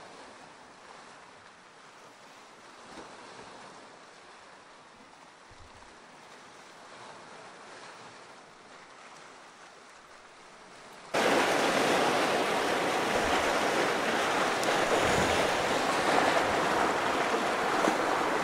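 A faint steady hiss, then about eleven seconds in the loud rushing of sea waves washing over rocks cuts in suddenly and keeps on.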